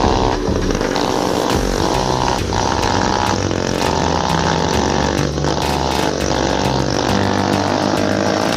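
Two-stroke Vespa scooter engines on homemade stretched rigs running steadily, their pitch shifting up and down with the throttle.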